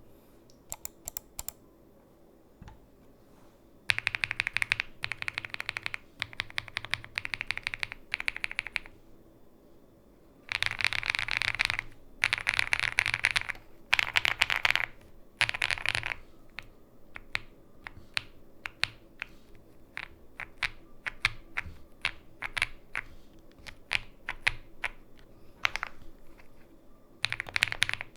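Heracles 80 mechanical keyboard with factory-lubed KFA Laughing Gas N2O switches and GMK Norse keycaps being typed on. A few single keystrokes come first, then two fast bursts of typing, then a long run of slower separate key presses, and fast typing again near the end.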